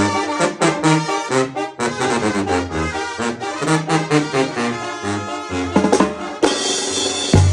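Sinaloan-style banda brass section of trumpets and trombones playing a melody over a steady beat on snare drum and timbales. Near the end the drums play a loud fill.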